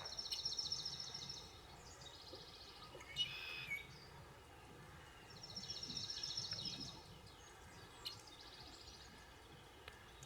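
Songbird singing faintly outdoors: two phrases of fast repeated high notes, one at the start and one about six seconds in, with shorter single calls between them.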